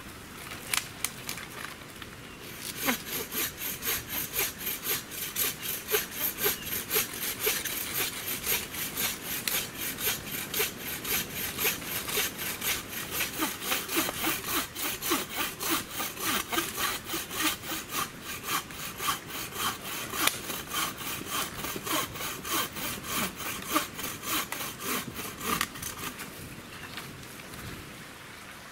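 Bow saw cutting through a dead fallen branch in steady back-and-forth strokes, about two to three a second, starting a few seconds in and stopping shortly before the end.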